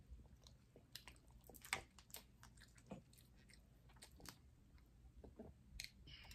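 Faint clicks and crackles of lobster tail shells being pulled apart by hand, mixed with soft chewing, coming in scattered clusters.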